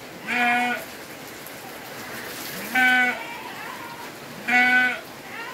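Goat bleating three times, about two seconds apart; each call is short and holds one pitch.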